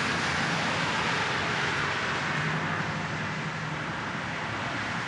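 Steady road-traffic noise from cars driving past on the street, fading slightly through the middle.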